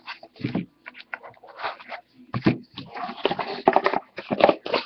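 A cardboard trading-card box being opened and its cards handled: irregular scraping, sliding and rustling of card stock, with sharp knocks about two and a half and four and a half seconds in.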